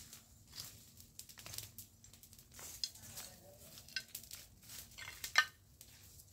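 A garden tool scraping and raking through dry soil and fallen leaves, in irregular scrapes and crackles. The loudest scrape comes about five and a half seconds in.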